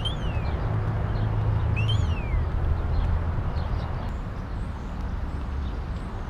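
Two bird calls, each a whistle that rises and then falls, about two seconds apart, with fainter chirps later. A steady low rumble runs underneath.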